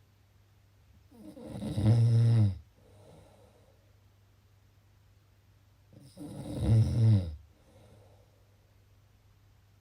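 Snoring: two loud snores about four and a half seconds apart. Each swells over about a second and then stops sharply, followed by a faint breath.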